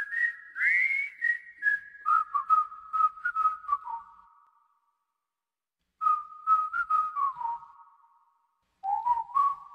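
A person whistling a slow melody in three phrases. The notes slide and bend between pitches, and each one starts with a soft click. There are short silent gaps between the phrases.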